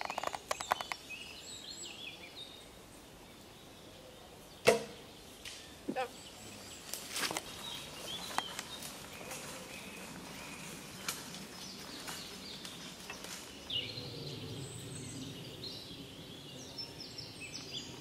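A bow shot: one sharp snap of the string about five seconds in, followed by a softer knock about a second later. Scattered small clicks and rustles follow.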